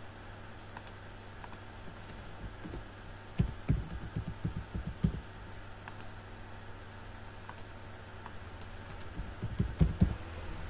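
Computer keyboard being typed on in two quick runs of key clicks: one about three and a half seconds in, lasting a second and a half, and another near the end. A password is being entered into a login form.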